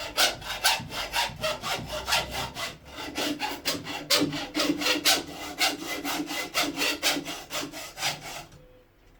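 Quick, rhythmic back-and-forth sawing strokes, about four or five a second, scoring round a steel wire armoured cable through the outer sheath and into the steel armour wires. The strokes stop shortly before the end.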